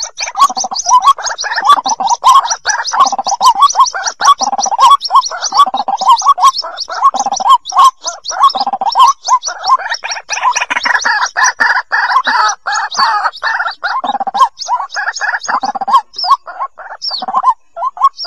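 White-breasted waterhen chicks calling for the parent: rapid, unbroken chattering and high peeping from several birds, with short low notes about once a second and sharp clicks among them.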